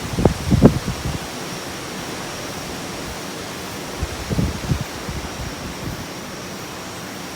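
Typhoon wind: a steady rushing hiss, with gusts buffeting the microphone in low rumbles in the first second and again about four seconds in.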